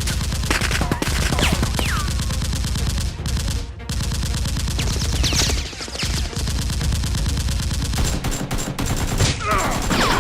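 Sustained rapid automatic gunfire, the sound effect laid over a Nerf blaster fight, with a few short breaks and several falling whistle-like tones.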